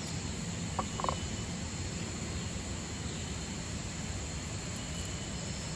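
Steady forest ambience: the even hiss of a shallow stream with insects, and two short chirps about a second in.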